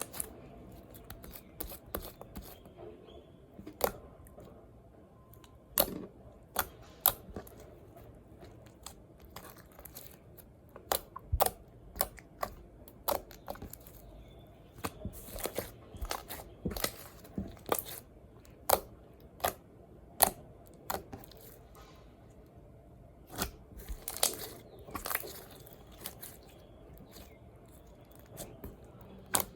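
Slime squeezed and stretched by hand, making irregular sharp clicks and pops as trapped air bursts, some of them loud.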